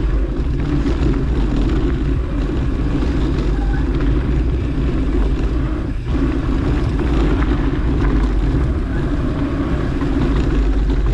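Steady rumble of a mountain bike rolling along a dirt trail, with wind on the microphone.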